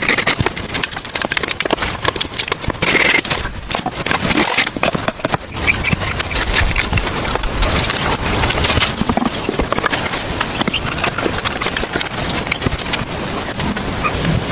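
A busy run of irregular knocks, clicks and scrapes, as of hands working with hard materials.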